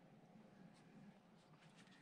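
Near silence: faint room tone with a low hum, and a few faint ticks of bare wire ends being twisted together by hand.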